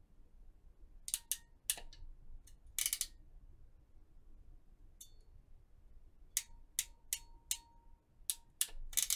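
Ratcheting wire crimper clicking as its handles are squeezed down on a Dupont terminal on a servo wire: a string of sharp, unevenly spaced clicks in two bunches.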